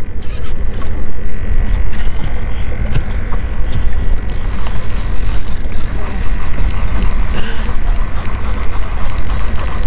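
Wind buffeting the microphone on an open boat: a loud, gusting low rumble. About four seconds in it turns hissier.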